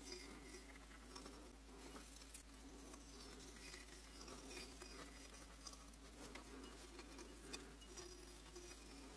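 Faint, irregular scratching and small clicks of a tool carving lines into a clay mug.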